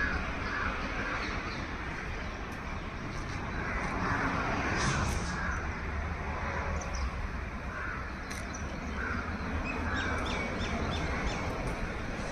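Short bird calls repeating over steady outdoor background noise, with a few thin high chirps near the end.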